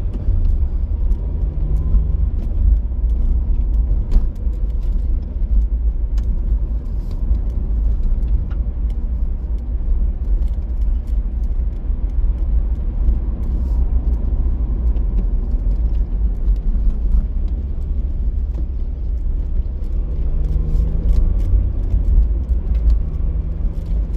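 Steady low rumble of a car driving, heard from inside the cabin, with scattered faint ticks.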